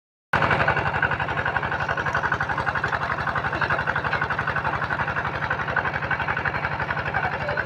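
Small engine of a water pump running steadily with an even, rapid beat, pumping water out of a fish pond. The sound drops out for a split second at the very start.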